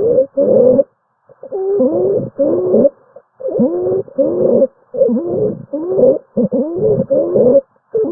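Stethoscope recording of a chest with musical adventitious lung sounds: short pitched tones of about half a second each that glide and bend in pitch, coming in quick succession with brief pauses. Such continuous musical breath sounds are the sign of narrowed airways.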